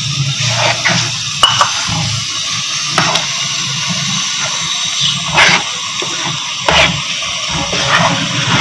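Water boiling in a frying pan as semolina is poured in and stirred with a wooden spoon: a steady bubbling hiss, with several short scrapes and knocks of the spoon against the pan.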